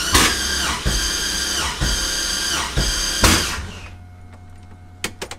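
Starter cranking the LS6 V8 slowly with a steady whine and a heavier beat about once a second. This is the slow cranking that turned out to be zero compression on all but one cylinder, from valves too long to seal. The cranking stops about 4 s in, leaving a low hum and a few clicks near the end.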